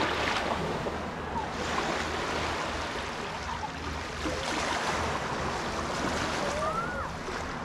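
Steady rushing of sea water and waves, with wind on the microphone.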